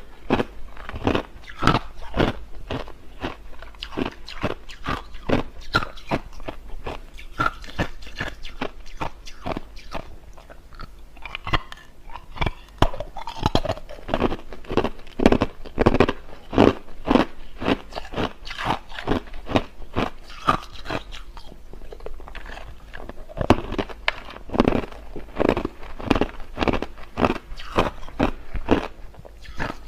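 A person biting and chewing hard, clear crushed ice close to the microphone: a dense, irregular run of sharp, loud crunches, several a second.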